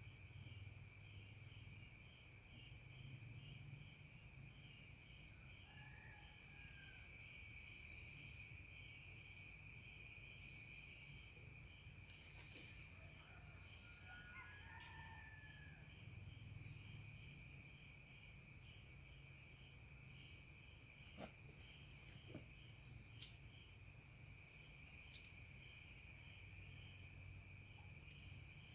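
Faint night-time insect chorus, crickets chirping steadily in a high, fast-pulsing trill, over a low steady hum. A rooster crows faintly around the middle, and there are two small clicks near the end.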